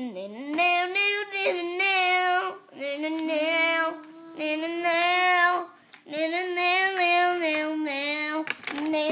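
A child singing a wordless tune in long held notes, in five phrases with short breaks between them.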